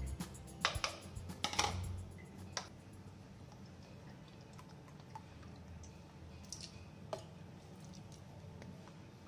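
A few light clicks and taps of a utensil in a metal mixing bowl of flour, bunched in the first three seconds, with two more later, over a faint background.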